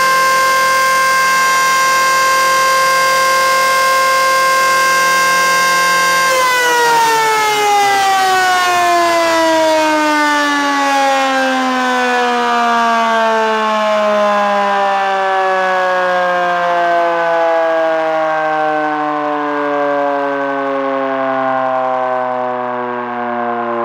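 Old rusty electric motor-driven rotor siren sounding a steady, loud wail, then its power is cut about six seconds in and it winds down, the pitch falling slowly and continuously as the rotor coasts to a stop.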